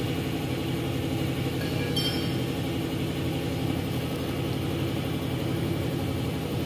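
An engine running steadily at idle, a constant low hum. About two seconds in there is a light metallic clink as the pump's pistons and retainer plate are handled.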